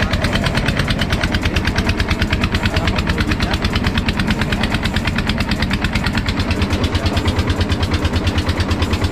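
Small inboard engine of a fishing raft running steadily under way, a loud, rapid, even beat that holds the same pace throughout.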